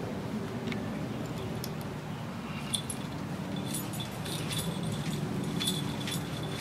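A towel being rubbed over a bull terrier's back, with light metallic jingling and clinks from about three seconds in, over a steady low background rumble.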